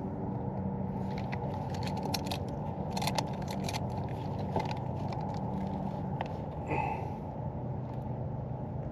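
Steady low rumble with scattered small clicks and rattles, most of them a couple of seconds in, as fishing gear is handled aboard a kayak.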